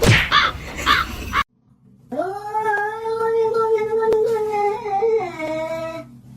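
A cat's long, drawn-out yowl of about four seconds on one held pitch, dropping lower near the end.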